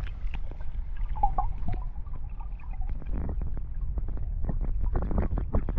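River water heard through a camera microphone held at and below the surface: a muffled, steady low rumble with gurgling and many small bubble clicks.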